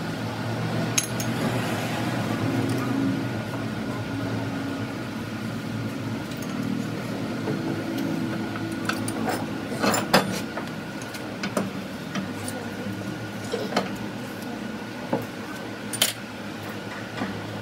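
Metal tools and steel gearbox parts clinking and knocking now and then, the sharpest knocks about a second in, near the middle and near the end, over a steady low drone.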